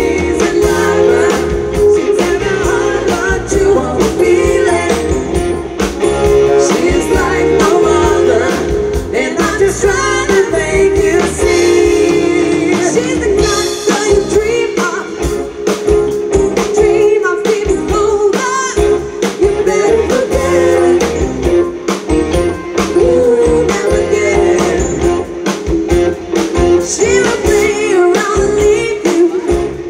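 Live rock band playing: male and female lead vocals trading and singing together over electric guitar, bass guitar and drums.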